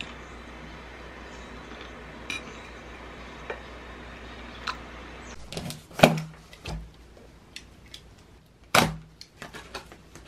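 A few faint clicks of a fork on a plate, then a cardboard box handled on a tabletop for unboxing: two sharp knocks about three seconds apart, with lighter taps and scrapes between.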